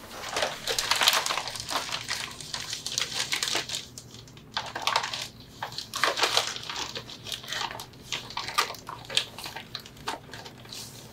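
A plastic bag crinkling and rustling in irregular bursts as it is handled and opened to get at the gift inside. The crinkling is densest for the first few seconds.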